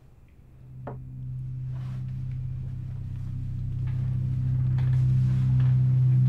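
A low, steady drone from the film's score that swells gradually louder, with a few faint higher tones sounding above it.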